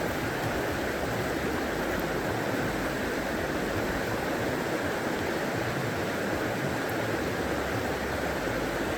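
River water rushing, a steady unbroken noise.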